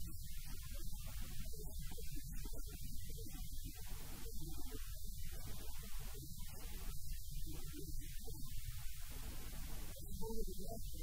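Steady low electrical mains hum, with faint muffled sounds coming and going above it.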